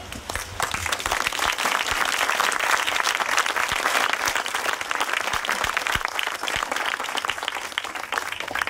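Audience applauding at the end of a piece: many hands clapping together, swelling within the first second and thinning out near the end.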